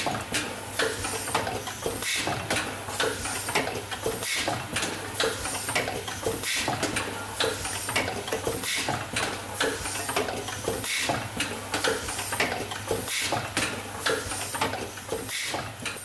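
Covatec Speed Riveter Multi automatic assembly machine running: a quick, uneven run of mechanical clicks and clacks from its presses and pick-and-place over a steady low hum.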